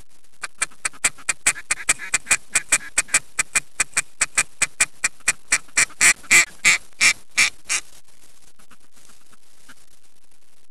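A duck call blown in a long, even run of about thirty quacks, about four a second, getting louder toward the end before stopping abruptly: a hunter's hail or comeback call to passing ducks.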